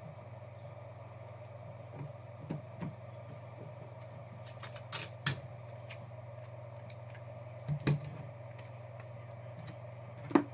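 Trading cards and their plastic holders being handled on a table: scattered sharp clicks and taps, a pair about halfway through, another pair near the end and a louder one just before the end, over a steady low electrical hum.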